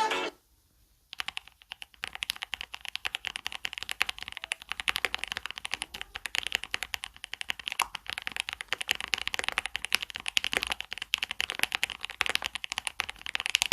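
Fast typing on a mechanical keyboard: a dense run of sharp key clacks that starts about a second in.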